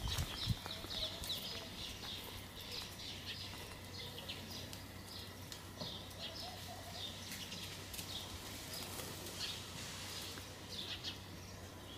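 Small birds chirping over and over in short, high calls, over a faint steady hum, with a low bump right at the start.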